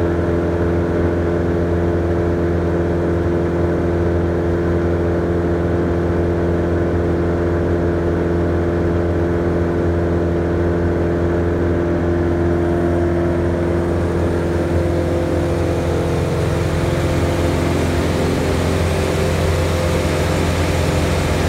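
Caterpillar turbo diesel engine of a Morbark Hurricane 2400XL drum chipper running steadily, with a deep, even hum. Its tone shifts slightly about two-thirds of the way through.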